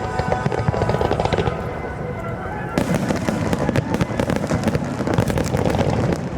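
Fireworks bursting in a dense, rapid barrage of bangs and crackling, with a fresh burst of crackle about three seconds in.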